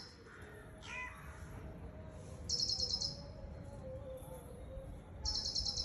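Birds chirping: a single call falling in pitch about a second in, then two quick bursts of rapid, high, repeated chirps, each lasting under a second.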